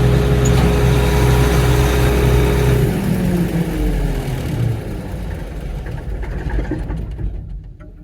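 A farm machine's engine runs steadily, then is switched off with the key about three seconds in. Its pitch falls as it winds down over the next couple of seconds, and the remaining sound fades away by the end.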